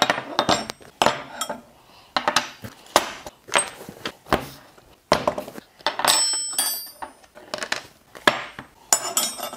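Steel tire irons and wrenches set down one after another on a wooden workbench, clinking and knocking, some with a brief metallic ring. Fabric tool pouches rustle between the clinks.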